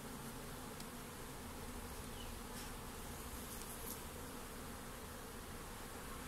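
Asian honeybees (Apis cerana) from an opened mini mating nuc buzzing steadily as a colony.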